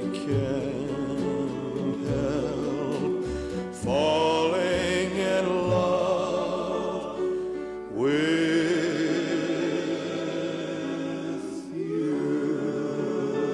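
Music with a sung vocal: long, held notes with vibrato, a new phrase starting about every four seconds.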